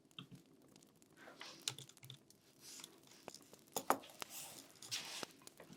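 Scattered computer keyboard typing: irregular key clicks, with a few short soft swishes in between.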